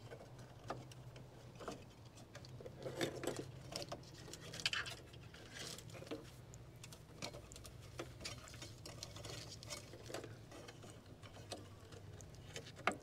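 Hands working plastic fittings and wiring inside a pool heater's open cabinet: irregular light clicks, taps and scrapes over a faint steady low hum, with one sharper click near the end.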